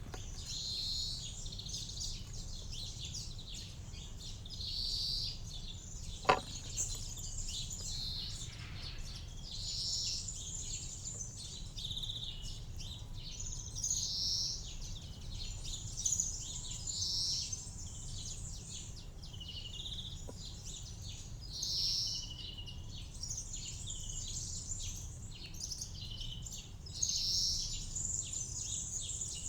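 Wild birds chirping and calling again and again in short high-pitched phrases over a steady low background rumble, with a single sharp click about six seconds in.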